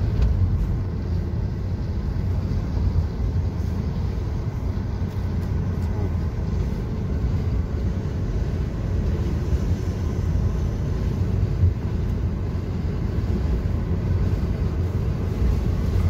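Steady low rumble of a car driving on the road: engine and tyre noise heard from inside the cabin.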